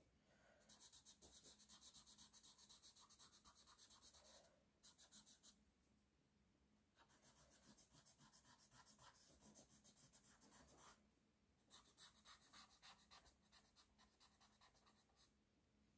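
Very faint rubbing of a paper blending stump over pastel pencil on drawing paper, in quick back-and-forth strokes that come in runs with short pauses.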